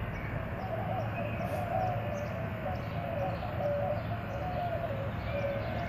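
An animal's long, continuous wavering call, steady in pitch level and warbling up and down without a break.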